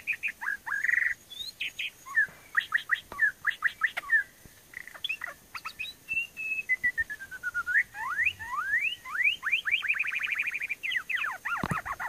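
White-rumped shama singing: a varied string of loud whistles and chirps, mostly quick sweeping notes. Past the middle comes a long falling whistle, then a run of rising notes and a fast trill near the end.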